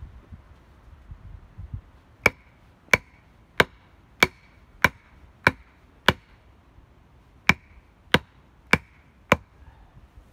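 Hatchet striking wood in eleven sharp blows about two-thirds of a second apart: seven in a row, a short pause, then four more.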